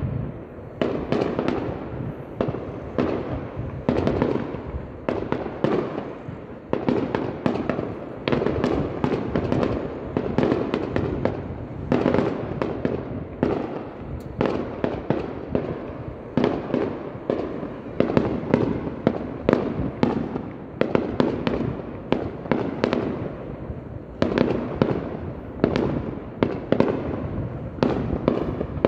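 Aerial fireworks bursting in a rapid, continuous barrage: many sharp bangs a second, overlapping and echoing into one another.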